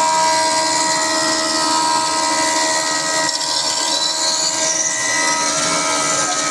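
Thickness planer running, its cutterhead planing a wooden board as it is fed through: a loud, steady machine whine made of several held tones over a hiss.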